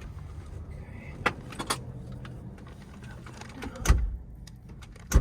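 Semi-truck sleeper bunk platform being lowered onto the storage underneath. A few light clicks and rattles, then two heavy thumps near the end as it knocks against something stowed below and won't close. A steady low hum runs underneath.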